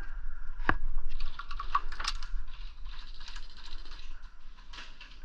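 A run of irregular sharp clicks and light rattles: a single click about a second in, a quick cluster over the next two seconds, then fainter scattered ticks.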